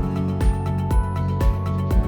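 Background music with a steady beat: a low drum hit about twice a second under held chords.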